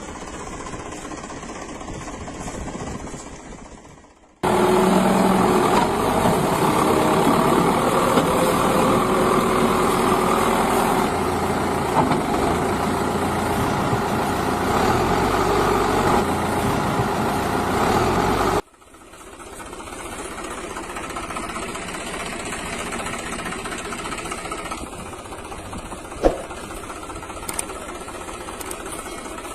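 Vehicle engine running steadily. A louder, denser stretch of engine noise cuts in abruptly about four seconds in and cuts off abruptly about fourteen seconds later, and a single sharp click comes near the end.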